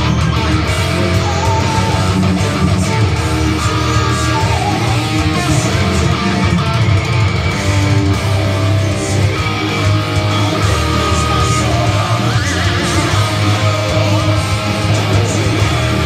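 Electric guitar played live through a Kemper Profiler amp modeler: continuous metal-style playing with a rising bend about twelve seconds in.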